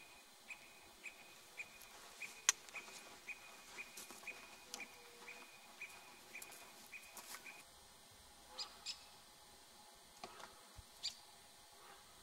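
A bird calling a steady series of short, same-pitched high notes, about two a second, which stops after about seven seconds; a few sharper, higher chirps follow. A sharp click about two and a half seconds in is the loudest sound.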